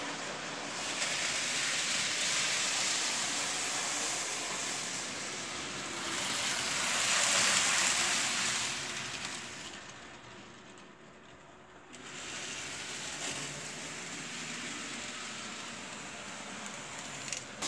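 Model trains running on a model railway layout: a steady rushing whir of wheels and motors on the track, loudest as the white high-speed train passes close about seven to eight seconds in, fading briefly around ten to twelve seconds in before returning.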